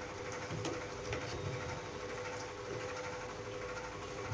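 A steady machine-like hum and hiss with a faint steady tone through it, and a few light clicks.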